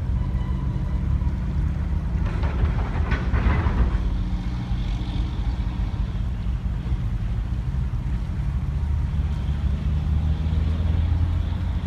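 Sailboat's auxiliary engine running steadily at a low, even hum while motoring. A few short clicks come about two to four seconds in.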